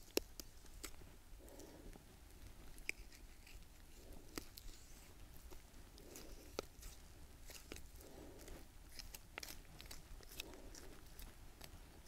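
Small hunting knife slicing the breast meat off a skinned wild duck: faint wet cutting and tearing of flesh and skin, with scattered small clicks.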